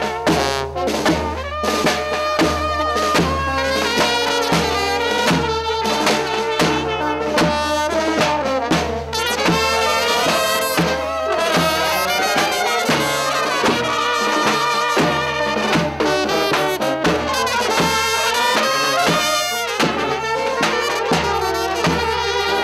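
Balkan brass band playing a dance tune: trumpets and horns carry the melody over a steady beat on a large bass drum.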